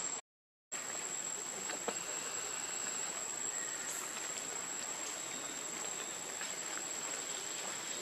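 Steady outdoor forest ambience dominated by a continuous high-pitched insect drone over a constant hiss, with a few faint clicks and rustles; the sound cuts out completely for about half a second near the start.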